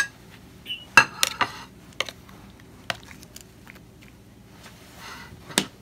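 A steel spoon clinking and tapping against a metal platter while spooning powdered spices onto yogurt-coated chicken: several sharp clinks in the first three seconds and one more near the end, with soft scraping of the spoon through the spice between them.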